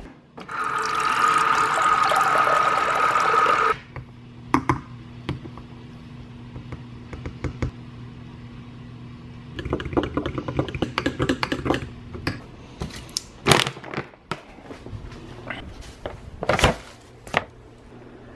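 A steady rush of liquid pouring or filling for about three seconds, then a metal spoon stirring a drink in a glass, clinking against the sides in a quick run of small clicks, with scattered knocks before and after.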